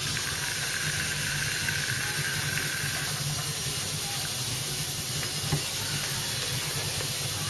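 4.5-inch angle grinder with a flap wheel grinding weld beads on a steel chassis leg, running steadily, with a steady high whine over the grinding hiss in the first three seconds. It is taking the heads off the welds to bring them flush with the panel.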